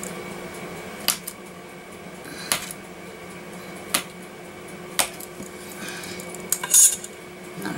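A long thin blade slicing down through a log of polymer clay and clicking against a marble work surface with each cut: four sharp clicks about a second apart, then a louder clatter near the end.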